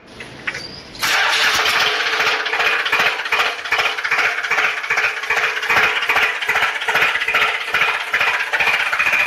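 Toy tractor's electronic engine sound effect: a simulated tractor engine that starts suddenly about a second in and then chugs steadily at about three beats a second, thin and with little bass.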